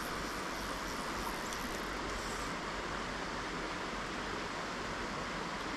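Steady rush of river water flowing over a shallow, rippling streambed.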